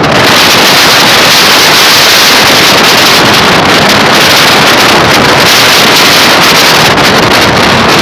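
Loud, steady wind rushing over the microphone of a camera held out of a moving passenger train.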